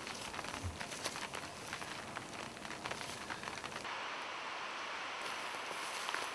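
Light rain spattering, a dense crackle of drops with some rustling. About four seconds in it gives way to a steady hiss.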